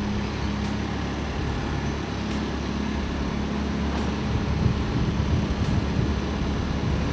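Heavy engine running steadily: a low, even hum with a few faint clicks over it.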